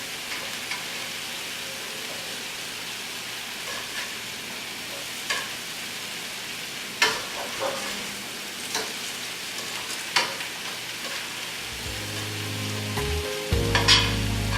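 Breaded chicken frying in olive oil in a pan: a steady sizzle with a few sharp clicks. Background music comes in near the end.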